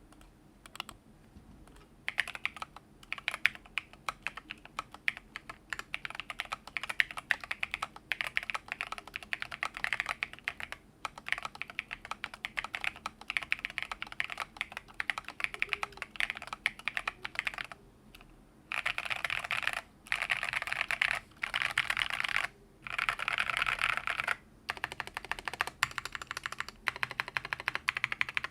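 Typing on a mechanical keyboard with lubed Holy Panda v2 tactile switches under thick PBT MT3-profile keycaps, on an FR4 plate in a foam-filled case. Typing runs throughout, with several stretches of about a second each of very fast keystrokes about two-thirds of the way through.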